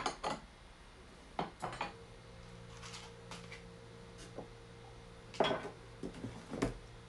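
Scattered light clinks and knocks of kitchen utensils and dishes being handled: a cluster at the start, two taps about a second and a half in, and three more near the end.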